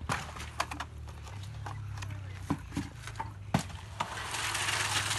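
Buckets of wet concrete being handled and emptied onto a floor slab: scattered knocks and clinks of the buckets, then, a little after four seconds in, a gritty rushing as concrete is tipped out of a bucket onto the slab.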